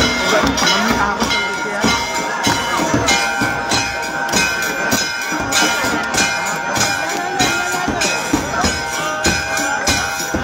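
Hindu temple aarti: metal bells ringing continuously, with steady ringing tones over a dense run of rhythmic strikes.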